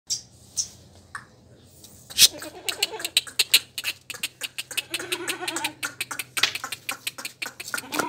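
Goat bleating in short wavering calls, among many sharp clicks and small high chirps.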